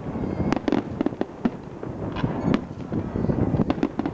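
Fireworks display going off: many sharp bangs and crackles in quick, irregular succession over a continuous low din.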